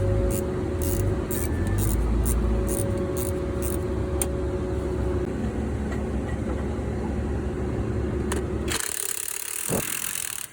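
Diesel truck engine with a freshly fitted turbocharger running steadily, with a light ticking about three times a second over the first few seconds. About nine seconds in, the engine sound gives way to a loud hiss.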